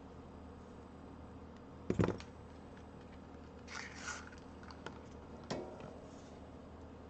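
Tools being handled on a workbench during desoldering: a loud knock about two seconds in, then brief scrapes and a couple of sharp clicks, over a steady low hum.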